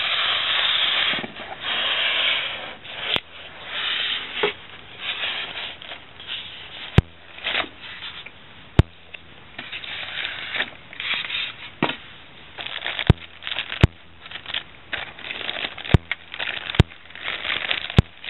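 Plastic packaging crinkling and rustling in irregular bursts as a car stereo head unit is worked out of its wrapping, with sharp clicks scattered throughout.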